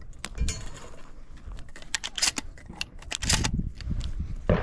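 A loose run of sharp mechanical clicks and clacks, with low thumps from about three seconds in and one stronger knock near the end.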